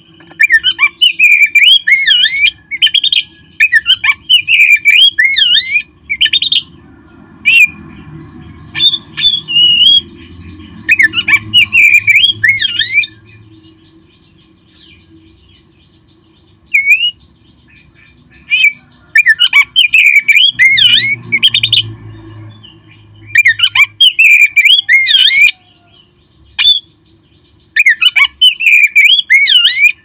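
Oriental magpie-robin singing in loud bursts of rapid, up-and-down whistled phrases, broken by short pauses.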